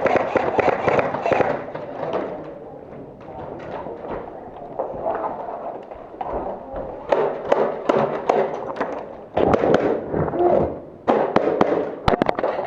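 Airsoft gunfire: volleys of sharp rapid shots and BB impacts, densest near the end.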